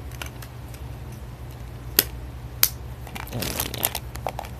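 Blind-bag toy packaging being handled, crinkling and rustling, with a couple of sharp clicks about two seconds in and more crinkling after three seconds.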